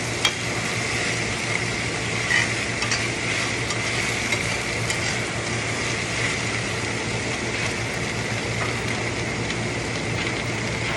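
Okra, onion, scallion, tomato and hot pepper sautéing in hot vegetable oil in a pot: a steady sizzle, with a few light clicks of a utensil against the pot in the first few seconds.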